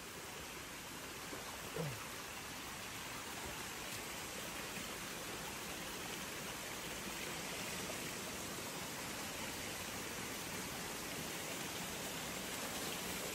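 Shallow rainforest stream running over rocks: a steady rush of water that grows slightly louder as it goes on. A brief rising sound about two seconds in.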